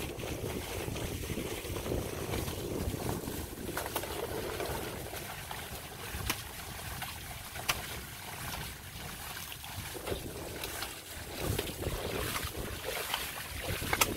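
Wind rumbling on the microphone, with a few sharp clicks scattered through it.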